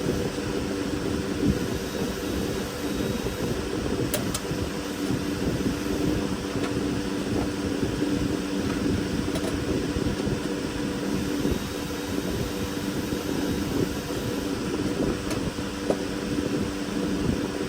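Steady mechanical whir with a low hum, unchanging throughout, and a few faint clicks around the middle.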